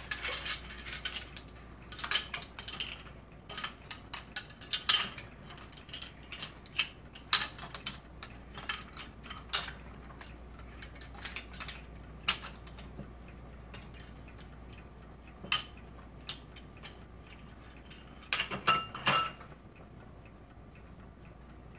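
Kitchen clatter of bowls, containers and utensils being handled on a counter: irregular clicks and knocks, busiest near the start and again near the end.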